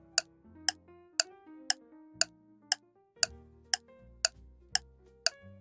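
Countdown timer sound effect: a sharp clock tick about twice a second, over soft, low background music.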